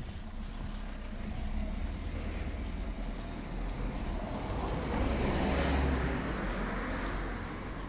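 A car passing on the street: a rush of tyre and engine noise that swells to a peak about five to six seconds in, then fades.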